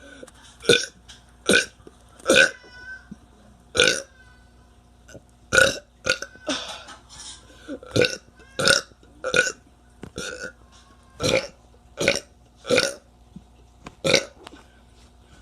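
A teenager burping over and over: about a dozen short, loud burps in quick succession, some coming less than a second apart.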